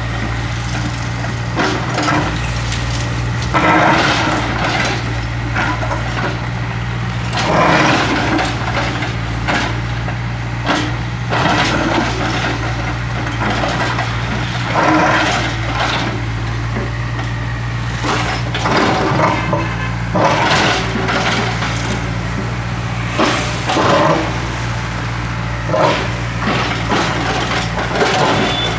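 Hydraulic excavator engine running steadily under load while its bucket crunches and scrapes against a concrete slab, with irregular cracking and grinding crashes every second or two.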